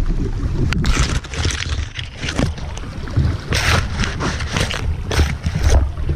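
Branches and leaves brushing and scraping against the camera in several irregular rustling bursts, over a steady low rumble of wind and river water on the microphone.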